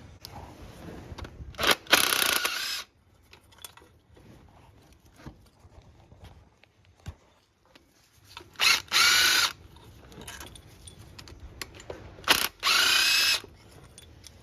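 A power tool, drill-like, spinning in three short bursts of about a second each, its whine rising in pitch during each burst, with small clicks of tool handling between; bolts being run out to take the water pump off.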